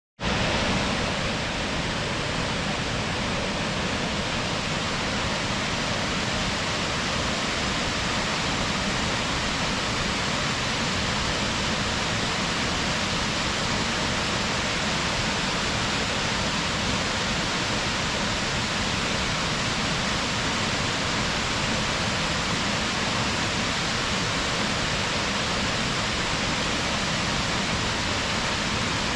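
Waterfall: a steady, unbroken rush of falling water plunging into its pool, with no change in level.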